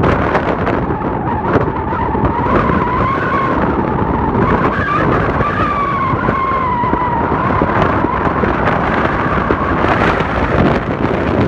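Strong wind buffeting the microphone in a constant hiss and rumble. A wavering whistle rises and falls through the middle of it for several seconds.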